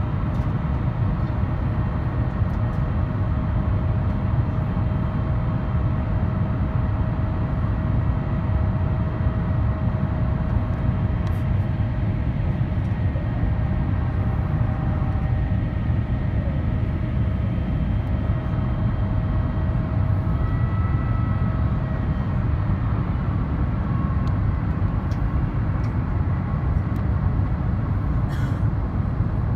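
Steady in-cabin noise of an Airbus A350-900 on its descent: the low rumble of airflow and the Rolls-Royce Trent XWB engines, heard from a window seat over the wing. A faint steady whine sits on top and fades about two-thirds of the way through.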